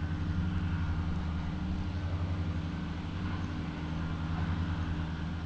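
Engine running steadily at idle, a low even hum with a slight rapid pulse.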